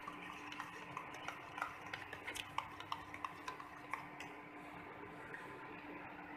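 Metal spoon stirring egg batter in a steel bowl, clinking against the sides several times a second and then more sparsely after about four seconds, over a steady low hum.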